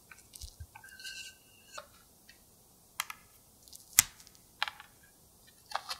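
Plastic wrap crinkling and squeaking under a wooden rolling pin as tart dough is rolled out. Then come a few sharp clicks and taps, the loudest about four seconds in, as a clear plastic guide bar is handled on the wooden board.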